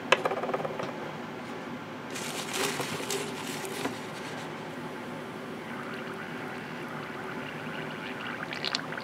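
Gaahleri GHAD-39 gravity-feed airbrush being back-flushed: the tip is held against a paper towel, so the compressed air is pushed back into the paint cup. There is a short burst of air hiss about two seconds in, then the thinned paint bubbling in the cup, building near the end.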